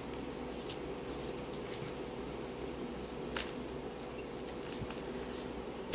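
Clear plastic bags of diamond painting drills being handled, giving a few sporadic crinkles, the sharpest about three and a half seconds in, over a steady low hum.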